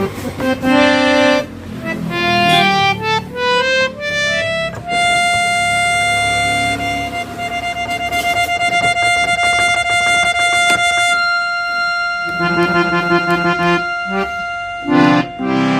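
Harmonium being played: a run of single notes climbs up the keyboard, one long note is held steady, and chords follow near the end. It is a play-through of the freshly repaired harmonium, with its reeds retuned and perfectly in tune.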